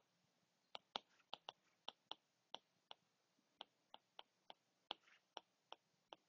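Stylus tapping and clicking on a tablet screen while handwriting: faint, sharp ticks at an uneven pace, about three a second, with a little scratching between some of them.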